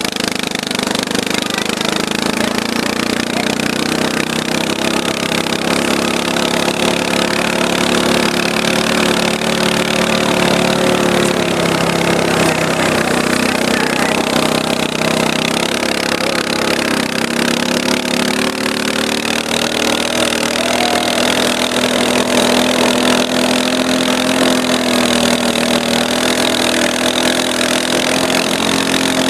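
Arctic Cat 250 quad's engine running steadily under way, pulling two snowboarders on tow ropes, its pitch wavering a little as the throttle shifts, with a steady hiss over it.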